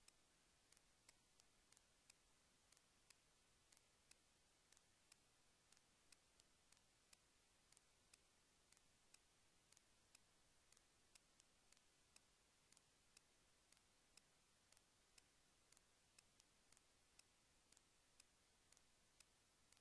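Near silence with faint, regular ticking, about two clicks a second.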